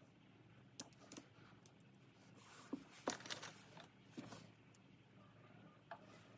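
Faint handling of small carbon-fibre frame parts and metal screws: a handful of sharp little clicks and light rattles as the pieces are turned over and fitted together by hand.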